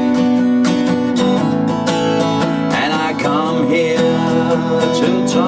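Acoustic guitar strummed in a steady rhythm, about three strums a second, with a melody that bends in pitch through the middle.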